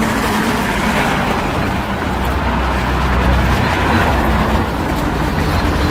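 City street traffic noise: vehicles passing, with a low engine rumble that grows stronger about two seconds in.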